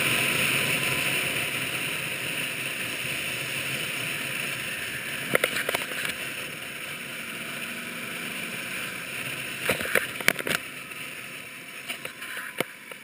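Wind and road noise from a motorcycle on the move, heard through a camera mounted on the bike, growing quieter as the bike slows. A few sharp knocks come about halfway through, a cluster comes about ten seconds in, and one more comes near the end.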